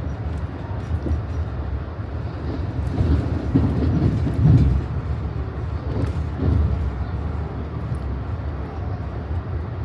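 Amtrak passenger train in motion, heard from inside the car: a steady low rumble of the wheels on the track, swelling louder around four seconds in.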